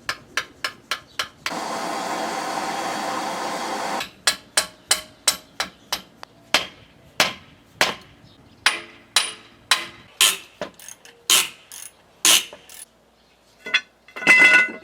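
Hand hammer striking steel on an anvil in repeated, evenly paced blows while a Jeep leaf spring is forged. The blows break off for a couple of seconds of steady rushing noise about a second and a half in, then resume, and a louder strike near the end rings on with a metallic tone.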